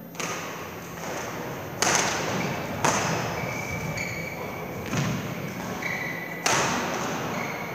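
Badminton rackets striking a shuttlecock: four sharp cracks that echo through a large sports hall, the loudest about two, three and six and a half seconds in. Short squeaks of court shoes on the floor fall between them.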